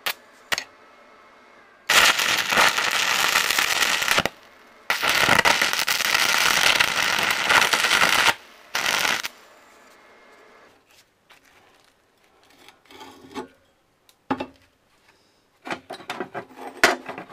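Stick-welding arc burning on a rod: two runs of about two and a half and three and a half seconds, with a short third strike just after. A few light knocks follow near the end.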